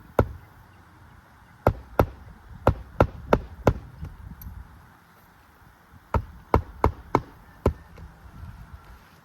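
Hammer driving roofing nails into an asphalt shingle: two runs of about five sharp blows each, roughly three a second.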